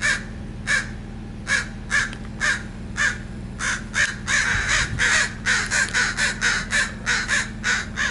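Crows cawing in a long series of short caws, about two a second at first, then coming faster and overlapping from about halfway through: territorial calling around their nest.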